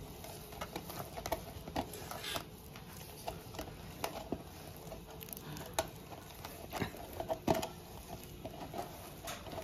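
A hand rubbing and pressing dry, crumbly gram flour (besan) against a stainless steel bowl, with irregular soft scrapes and ticks of fingers and flour on the steel. The flour is being worked stiff to break up its lumps before water is added.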